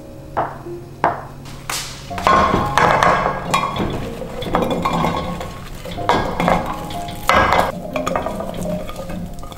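A chef's knife chopping down through a block of tofu onto a wooden cutting board: three sharp knocks. From about two seconds in, diced vegetables tip out of a glass bowl into a cooking pot, a dense clattering patter of pieces landing in the pot.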